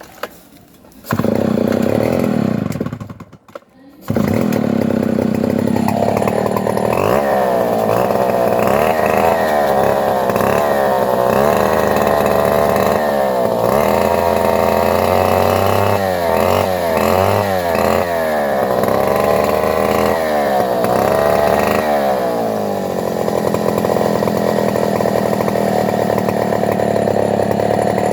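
Chainsaw engine starting about a second in, cutting out briefly, then starting again. It revs up and down over and over while cutting a coconut palm trunk, and settles to a steadier run near the end.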